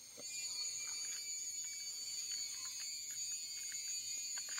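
Steady, high-pitched insect drone of several even tones held together, with a few faint scattered ticks.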